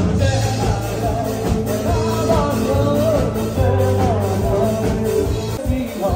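Live band playing, with a male vocalist singing into a microphone over bass guitar and drums. The bass drops out near the end.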